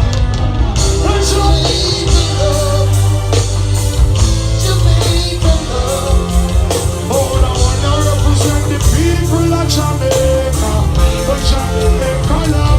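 Loud live band music with a voice singing over it: a steady heavy bass line and regular drum hits under the vocal.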